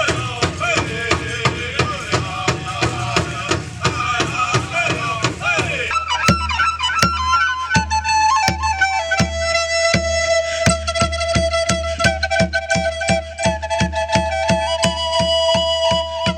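Steady powwow drum beat with voices singing over it; about six seconds in it cuts to a flute playing long held notes that step up and down over a steady hand-drum beat.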